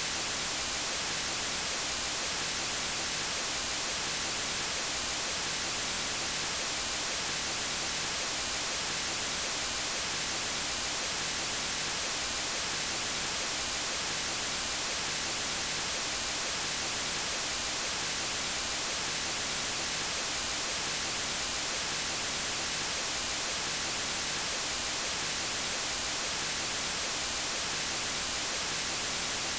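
Steady white noise: an even, bright hiss that does not change or break.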